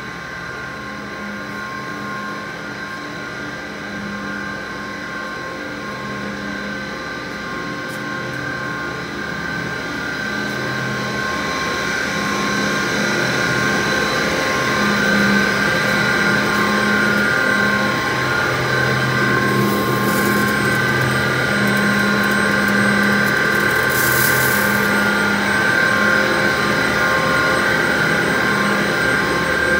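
Steady drone of running plastic-pipe factory machinery, with several steady hums and whines layered together, growing louder over the first half. Two short hisses come about 20 and 24 seconds in.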